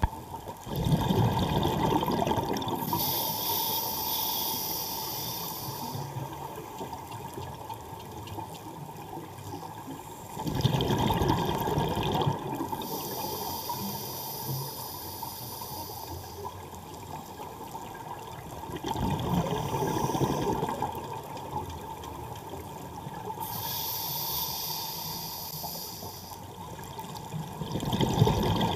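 Scuba diver breathing through a regulator underwater. Exhaled bubbles rush past about every nine seconds, and each burst is followed a little later by the high hiss of an inhalation through the regulator.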